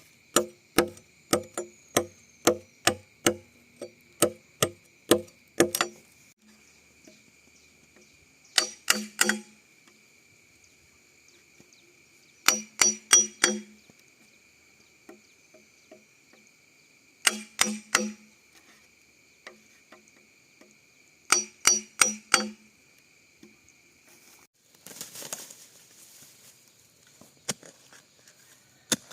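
Blows striking bamboo, each a hard knock with a hollow ringing tone. They come about two a second at first, then in short bursts of quick blows every few seconds.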